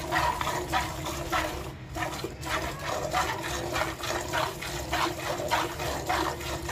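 A cow being milked by hand: rhythmic squirts of milk from the teats hiss into a bucket, about two to three squirts a second.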